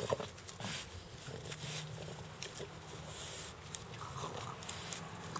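A small dog moving about on wood-chip mulch, with scattered light clicks and rustles.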